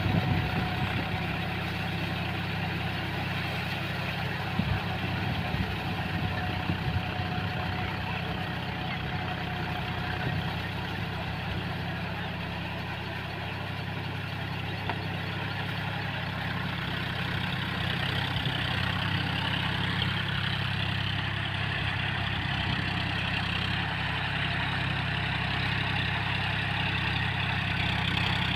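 Farm tractor's diesel engine running steadily as it drags a rotary tiller through a flooded paddy field, puddling the mud before rice is planted. A few sharp knocks come in the first several seconds, and the sound grows a little louder in the last third.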